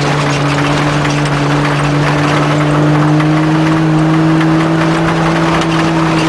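Off-road vehicle engine running steadily under load, heard from inside the cab, its note rising slightly over the first few seconds and then holding. Loose gear and the body rattle and knock over the rocky dirt track.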